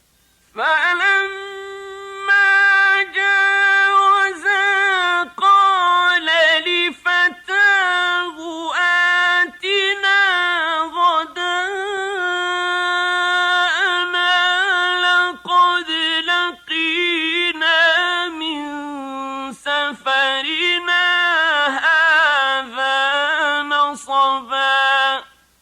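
A man's voice reciting the Quran in the melodic mujawwad tajweed style, unaccompanied, with long, high, ornamented held notes and only brief breaks.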